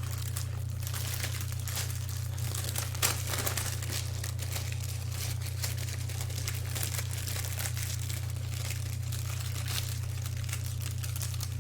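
Crinkling and rustling of a book's plastic wrapping being handled and opened, with a sharper crackle about three seconds in. A steady low hum sits underneath.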